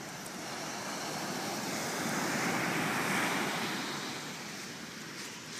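Surf on a beach: a wave washes in, swelling to a peak about halfway through and then fading.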